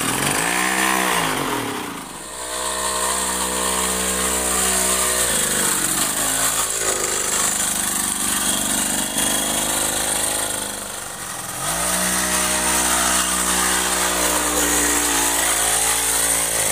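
Small two-stroke grass-cutter engine on a homemade scooter, running through an exhaust made from a spray-paint can, revving up and down: a quick blip about a second in, held high for a few seconds, easing off around five seconds in, then rising again about twelve seconds in and held before dropping near the end. The can exhaust gives a fairly smooth note.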